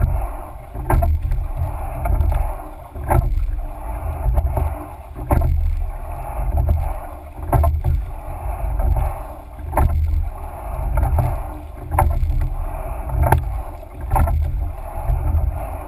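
Coxed-four rowing shell under way at a steady rate of about one stroke every two seconds: each stroke brings a sharp clunk of the sweep oars turning in their oarlocks and a swell of rushing water along the hull, over a low steady rumble.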